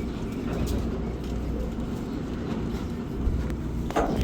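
Steady low rumble aboard a fishing boat at sea, with a single sharp knock about four seconds in.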